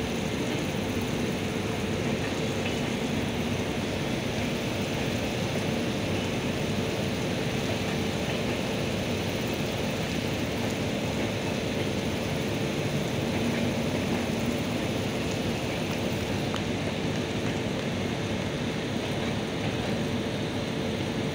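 Passenger train's coaches rolling slowly along the track on arrival: a steady rumble and hiss of wheels on rail, with a faint steady hum.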